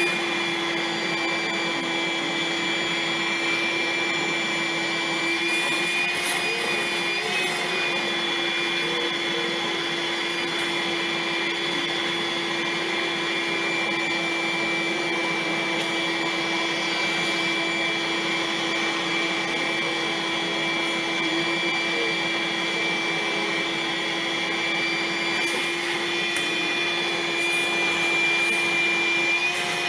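Vacuum cleaner running steadily, a constant motor whine over the hiss of rushing air, with no change in pitch.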